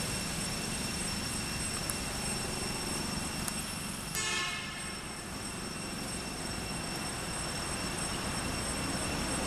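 Steady outdoor background noise with faint, steady high thin tones. A brief pitched call or hoot, about half a second long, comes a little after four seconds in.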